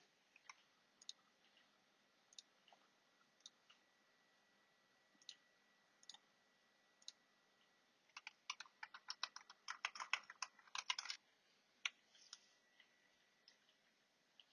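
Keys of a Razer Huntsman Tournament Edition keyboard with linear optical switches being pressed, faint: scattered single keystrokes, then a quick flurry of rapid presses from about eight to eleven seconds in, then a few more single presses.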